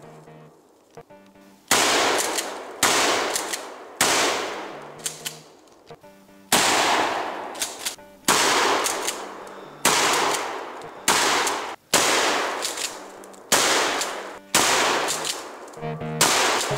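Mossberg 500 pump-action shotgun with an 18.5-inch barrel firing Winchester number 8 birdshot field loads, about a dozen shots in a row. Each shot is a sharp blast that echoes away over a second or so, with gaps of one to two and a half seconds between shots.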